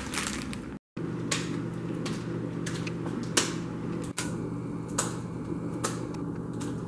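Over-the-range microwave oven running, a steady low hum that starts about a second in, with a few sharp clicks over it.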